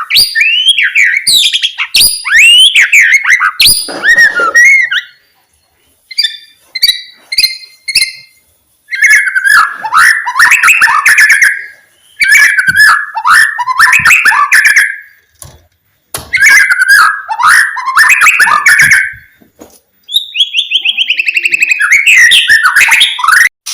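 White-rumped shama singing loud, varied whistled phrases of about two to three seconds each, separated by short pauses and mixed with sharp clicks.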